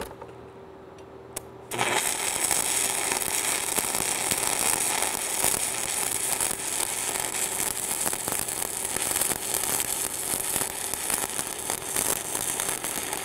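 Stick-welding arc restruck on the electrode after a couple of faint ticks, lighting up suddenly about two seconds in. It then runs as a steady, dense crackle while the rod lays the bead; the arc has re-established and the weld is back under way.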